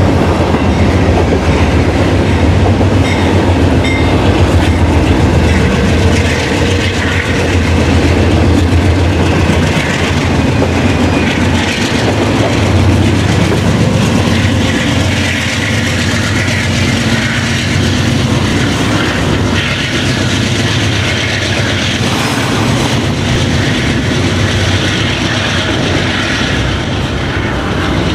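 Two freight trains passing on a double-track line: an intermodal trailer train rolling away into the tunnel while a double-stack container train comes out toward the listener, with loud, steady rolling rumble and wheel noise. The container train's diesel locomotives pass by about halfway through, followed by the rolling container cars.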